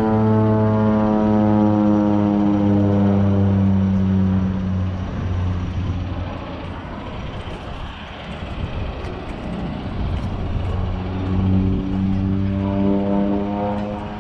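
Small propeller airplane flying overhead: a steady engine drone whose pitch slowly falls as it passes, fading out about five seconds in. After a quieter, noisier stretch the drone comes back near the end.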